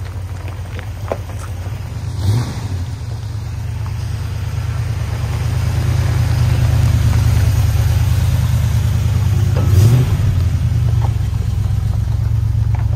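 1971 Ford pickup's engine running with a steady low rumble as the truck drives slowly on gravel, growing louder a few seconds in. Two short louder surges come about two seconds in and again near the end.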